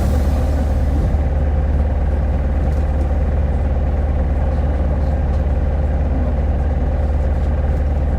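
Type 2SG-HL2ANBP city bus heard from inside the cabin: the engine is idling with a steady low hum and a faint steady tone above it.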